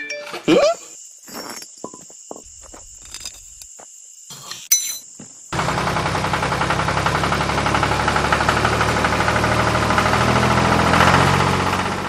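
Small electric motor of a homemade toy tractor starts running steadily about five seconds in. Before it there are scattered clicks and a short rising whistle.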